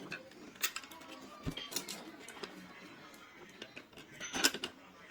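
Irregular clicks and knocks of smart-lock parts being handled and fitted on a door, with a dull thump about a second and a half in and a louder cluster of clicks near the end. Faint background music.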